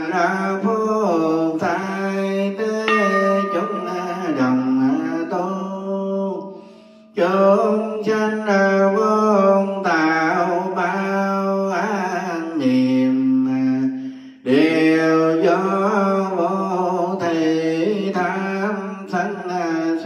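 A male Buddhist monk chanting a Vietnamese prayer in a sung, melodic voice, holding long notes. He sings three long phrases, each about seven seconds, with a short breath between them.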